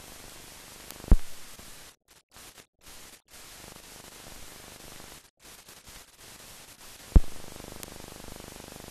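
Steady hiss and static of an old film soundtrack with no speech or music. Two sharp low thumps come about six seconds apart, and the hiss cuts out briefly several times in the middle.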